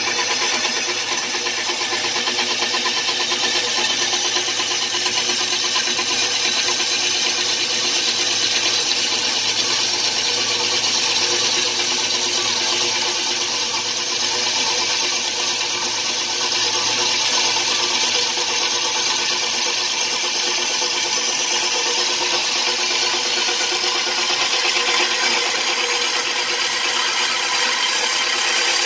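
Metal-cutting bandsaw running steadily through a small 80 mm steel I-beam, the blade grinding through the steel with a continuous, mostly high-pitched sound.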